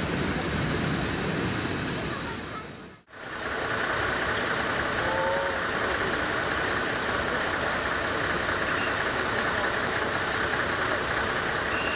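Diesel locomotive 1806 (CFL, 1963) idling steadily at a distance, with a constant hiss over its engine note. The sound drops out briefly about three seconds in, then picks up again.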